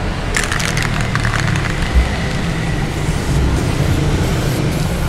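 Aerosol spray paint can hissing in uneven passes, starting about half a second in, as thin coats are sprayed. A steady low hum runs underneath.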